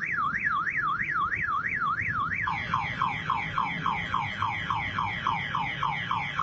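A man imitating a car alarm with his voice. First comes a shrill up-and-down warble about three times a second; about two and a half seconds in it switches to quick falling whoops, four or five a second, which then cut off abruptly.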